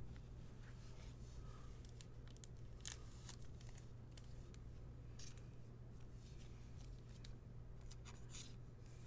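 Faint handling of baseball trading cards, cards sliding and flicking against each other and the fingers in a few short scratchy clicks, over a steady low electrical hum.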